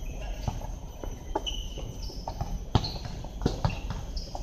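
Basketball bouncing on a hard outdoor court, mixed with players' footsteps: a string of irregular sharp thuds, the loudest a little under three seconds in.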